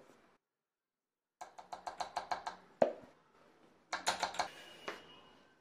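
A wooden spoon tapped quickly against a bowl to shake flour off it. There are two runs of light clicking taps, about eight a second, and each ends in a single harder knock.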